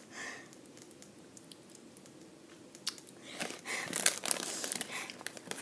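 Foil snack bag of Flamin' Hot Cheetos crinkling as a hand rummages in it for a chip. The crinkling starts about three seconds in and goes on in crackly bursts until near the end.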